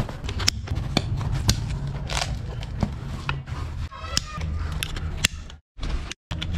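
A nylon tactical dog harness being handled and fitted: fabric rustling and scraping with sharp clicks of straps and plastic buckles. The sound cuts out twice briefly near the end.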